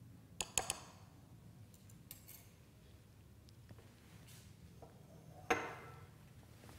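A metal spoon clinks a few times against a ceramic bowl of half-frozen lemon sorbet as it is worked to break up the ice crystals. Near the end comes one louder knock of something set down on the counter, over a low room hum.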